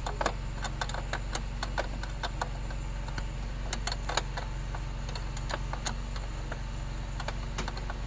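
Irregular light metallic clicks and ticks as a spanner is worked on a brake-line fitting nut at a Toyota Hilux's brake master cylinder, loosening it, over a steady low hum.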